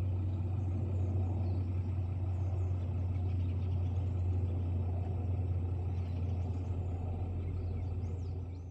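Steady low motor-vehicle rumble with a few faint high bird chirps over it; the sound fades out near the end.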